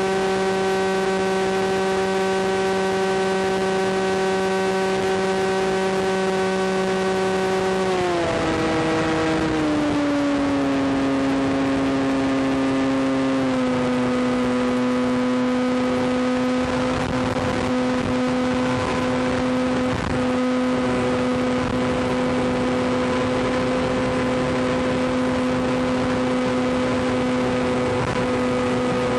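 Electric motor and propeller of a Maxi Swift flying wing, heard from on board, running at a steady high whine, then dropping in pitch in two steps about eight and thirteen seconds in as the throttle is pulled back from full power (about 52 A) to cruise (about 15 A). A steady wind rush runs beneath it.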